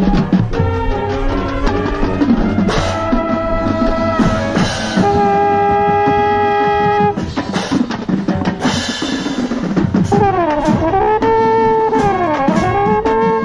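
Marching band playing full out, brass chords over drums, with a long held chord in the middle. From about ten seconds in the melody swoops down and back up in pitch, about every second and a half.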